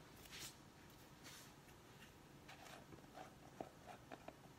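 Faint handling noises of a plastic sugar scrub jar: soft swishes, then a quick series of small clicks and scrapes near the end as its screw lid is twisted off.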